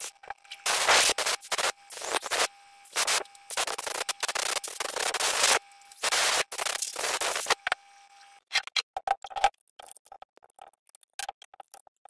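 Short blasts of compressed air from an air hose, hissing in repeated bursts of about half a second to a second and a half, blowing through generator carburetor parts; in the last few seconds, light metal clicks and taps.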